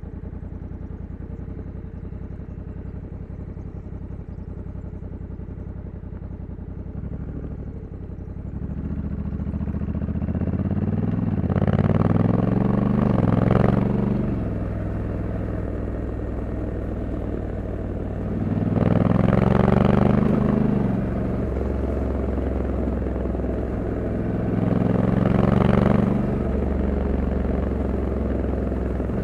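Honda Africa Twin 1100's parallel-twin engine runs steadily at low revs, then pulls away about eight seconds in. The revs climb and drop back three times as the DCT gearbox shifts up through the gears.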